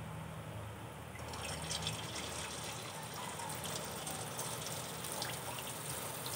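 Gram-flour batter dripping through a perforated slotted spoon into hot oil in a kadai, the drops sizzling as they fry into boondi. A fine crackle with small ticks sets in about a second in and keeps on.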